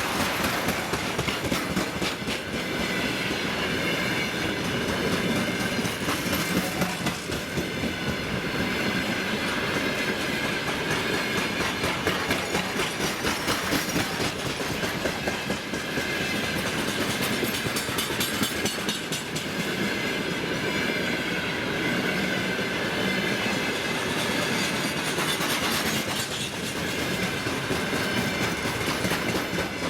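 A freight train's wagons rolling past steadily, their wheels clicking rapidly over the rail joints.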